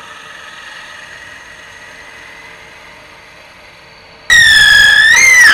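Wood lathe spinning a turned wooden piece while a twist drill bit in a drill chuck bores through its centre: a steady low running noise, then about four seconds in a loud, high squeal as the bit rubs in the hole, rising in pitch just before it stops.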